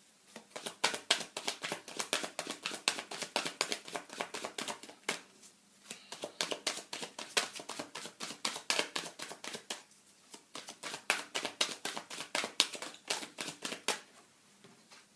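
Tarot cards being shuffled by hand: rapid crisp clicking of cards in three spells, with brief pauses about five and ten seconds in, stopping shortly before the end.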